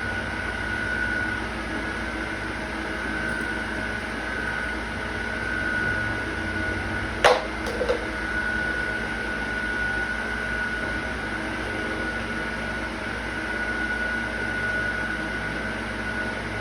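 Steady machine hum with a constant high whine, broken by a sharp click about halfway through and a fainter one just after.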